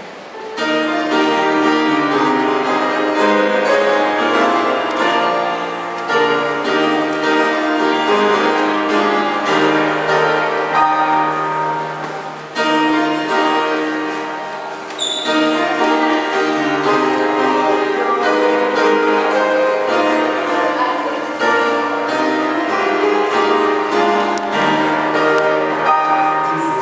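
Slow instrumental music of sustained chords that change every second or two, with a short break about twelve seconds in. A brief high-pitched tone sounds about fifteen seconds in.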